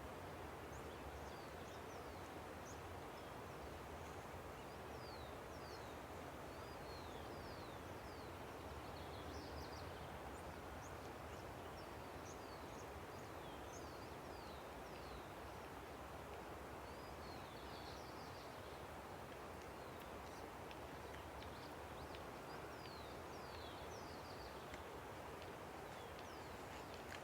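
Steady rush of a river, faint, with many small birds chirping over it in short, quick, falling notes that come in clusters throughout.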